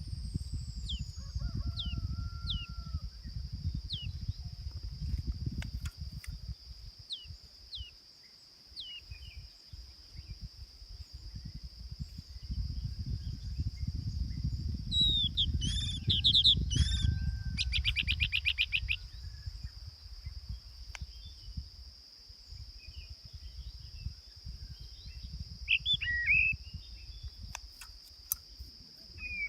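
Small songbirds chirping: a series of short down-slurred chirps at first, a fast trilling song burst about halfway through, and a few more chirps near the end. A steady high-pitched thin tone runs underneath, with low rumbling noise at times.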